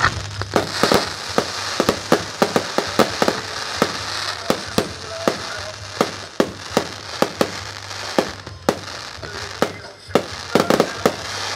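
Fireworks display: a rapid, irregular run of sharp bangs from shells and comets bursting overhead, dozens in all, over a steady hiss. The bangs thin out midway and come in a tight cluster near the end.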